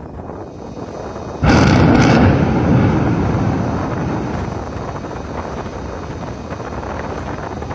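Volcanic eruption blast: a sudden loud boom about one and a half seconds in, followed by a long rumble that slowly fades.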